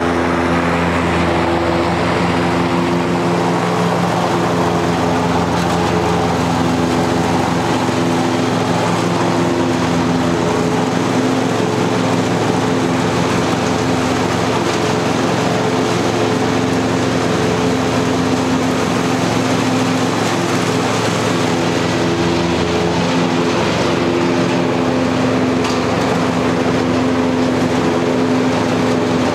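Cub Cadet Ultima ZTX zero-turn mower's engine running steadily at a constant speed.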